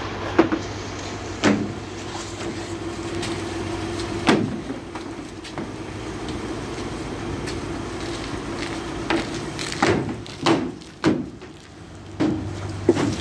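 A steady motor hum, dipping briefly near the end, with several irregular knocks and clunks over it.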